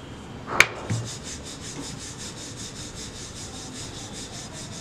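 Wooden rolling pin rolling wheat-flour chapati dough on a stone rolling board: a quick, even back-and-forth rubbing rhythm. A single sharp knock comes about half a second in, before the rolling begins.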